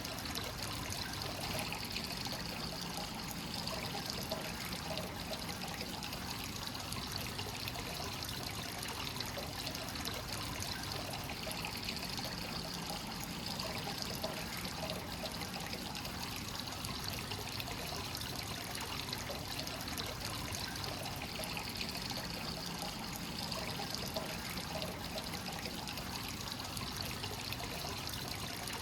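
Hot spring water flowing continuously from the source into a bath, steadily trickling and pouring, with gentle swells every several seconds.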